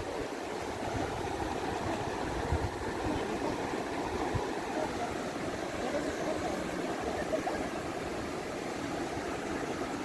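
Steady rush of river water flowing over rocks, an even hiss without breaks.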